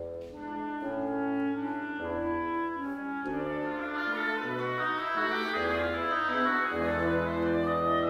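Woodwind quintet of clarinet, bassoon, French horn and other winds playing sustained chords and a slow melody, growing fuller and louder from about halfway.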